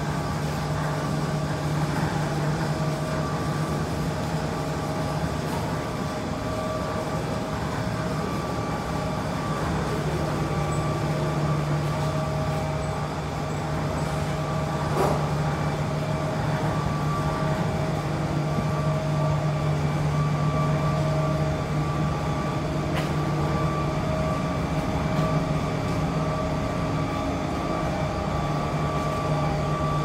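Steady low hum of running machinery with a fainter whine above it, and one brief click about halfway through.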